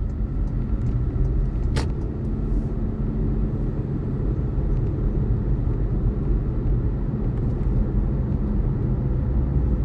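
Steady engine and road rumble heard from inside a car's cabin while driving, with one sharp click about two seconds in.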